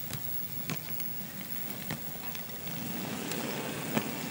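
ScaleTrains ES44AC model locomotive running along the track: a low motor and gear hum with the wheels clicking on the rails. It is a DCC-ready unit with no sound decoder, so only its mechanical running is heard.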